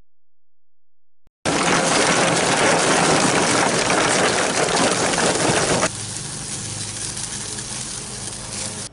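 Charcoal briquettes pouring from a paper bag into a grill, a loud steady clatter that starts suddenly about a second and a half in. About six seconds in it drops to a quieter steady rushing with a low hum: the charcoal fire burning.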